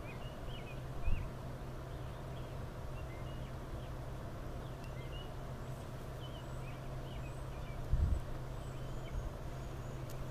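Small birds chirping repeatedly over a steady low hum, with two dull low thuds, about a second in and again near eight seconds.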